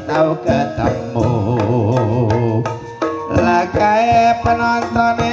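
Javanese gamelan music accompanying an ebeg horse dance: kendang hand-drum strokes under a wavering melodic line, with steadier sustained notes taking over about three seconds in.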